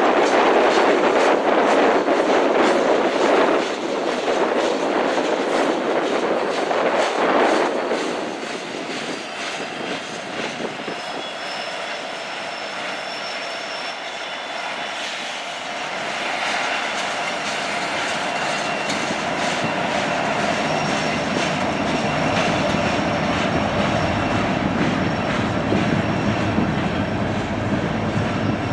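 Freight cars (boxcars, then tank cars) rolling past on steel rails, wheels clattering over the track. Louder for the first eight seconds, then quieter, with thin high wheel squeals near the middle and a low rumble building toward the end.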